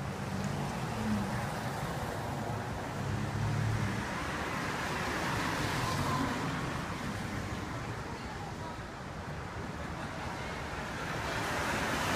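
Steady hiss of rain and road traffic on a wet city street.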